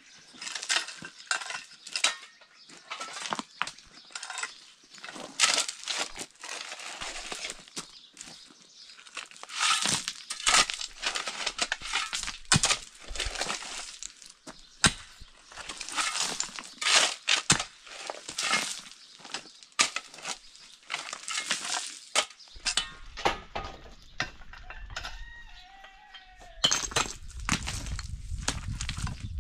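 Long-handled picks digging into stony ground: the metal heads strike and scrape rock and gravel in quick, irregular clinks and crunches. Near the end the digging eases and a bird calls a few times.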